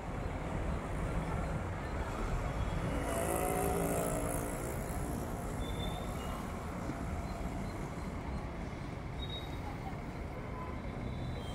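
City road traffic: a steady rumble of engines and tyres, with a louder vehicle engine passing about three to five seconds in.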